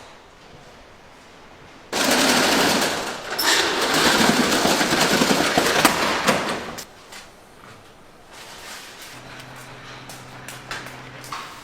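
Food hitting hot oil or a hot pan: a loud burst of sizzling and crackling starts suddenly about two seconds in, lasts about five seconds, then dies away to a faint steady hum.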